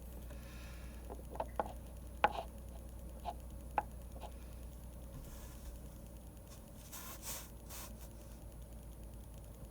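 Pen and drawing tools on a desk while drawing manga: a run of small sharp clicks and taps in the first half, then a few short scratchy strokes later on, over a low steady hum.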